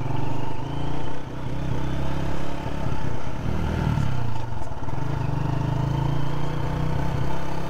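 Motorcycle engine pulling away and accelerating under the rider, its note climbing, dropping away about four seconds in, then holding steady.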